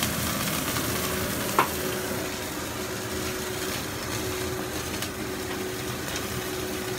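Boneless chicken thigh steak sizzling steadily as it pan-fries in a frying pan, with a single sharp tap about a second and a half in.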